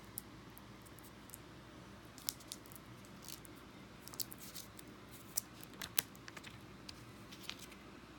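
Scattered light clicks and taps of small objects being handled, irregular and a few louder than the rest, over a faint steady room hum.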